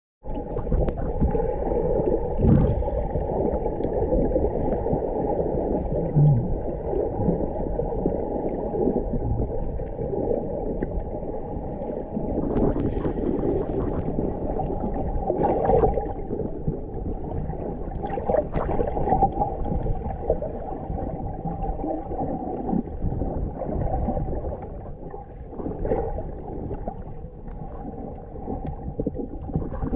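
Muffled underwater noise from a camera held below the surface: a steady low rush of water moving around the camera, with several brief louder swishes and gurgles.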